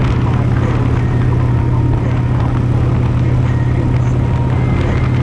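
Steady low mechanical hum with an even noisy rumble over it, holding level throughout.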